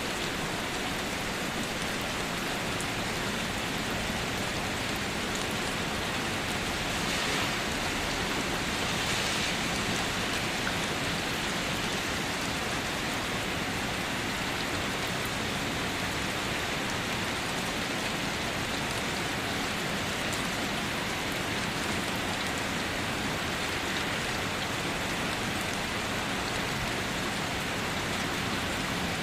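Steady rain falling on a surface, an even hiss with faint scattered drop ticks, swelling slightly twice around a quarter of the way in.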